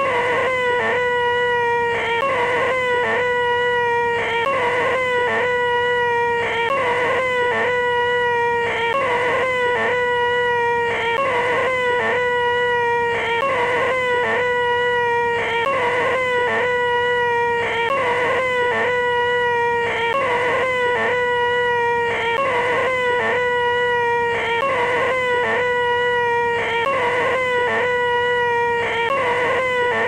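A man's voice holding a high-pitched, nasal 'eeeeeh' whine at one steady pitch, the 'most annoying sound in the world', looped over and over with brief breaks about every two seconds.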